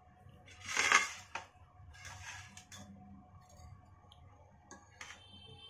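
Kitchen handling noise: a brief scraping rustle about a second in, a softer one around two seconds, and a few light clicks, from a plate being drawn across a stone countertop next to a steel cooking pot.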